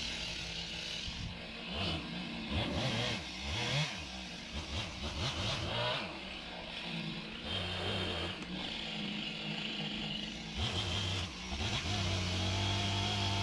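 A small engine running and revving up and down, then settling to a steadier speed in the second half.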